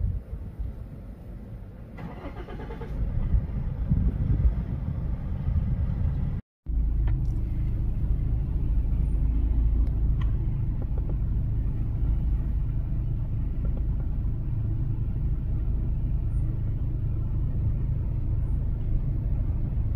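Vehicle engine idling with a steady low rumble. It cuts out abruptly for a moment about six seconds in; before that the rumble is weaker and uneven.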